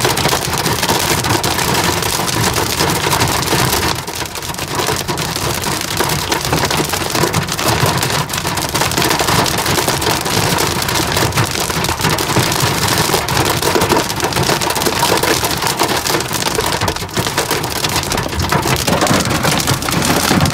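Hail and heavy rain pelting the car's roof and glass, heard from inside the cabin as a dense, steady clatter of countless small hits.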